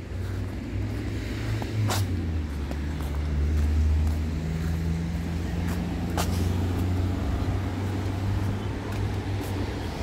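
Road vehicle engine running nearby, a steady low hum that swells a few seconds in and carries on. Two sharp clicks are heard over it, one about two seconds in and one about six seconds in.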